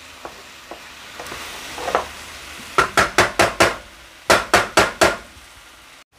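Wooden spatula stirring quail, onions and peppers in a nonstick frying pan: a quick run of about five knocks and scrapes against the pan, a short pause, then four more, over a steady sizzle of frying.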